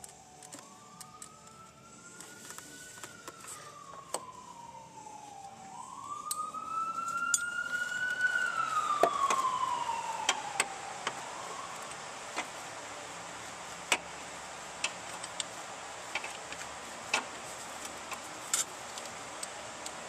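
An emergency vehicle's wail siren, rising and falling slowly twice, growing louder and then fading out about halfway through. Scattered sharp clicks follow.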